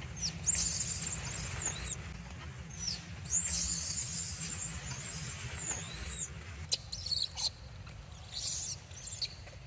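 Baby monkey giving shrill, high-pitched squealing cries in several bouts, the sound of an infant in distress.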